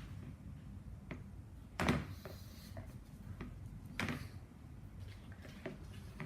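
A few separate soft knocks and clicks of things being handled and set down, the loudest about two seconds in and another about four seconds in.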